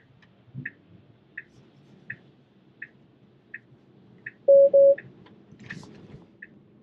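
Tesla Model 3 cabin with the turn signal ticking steadily, about three ticks every two seconds. About two-thirds of the way in, a loud double-beep warning chime sounds, which the driver puts down to the self-driving software struggling with the left turn.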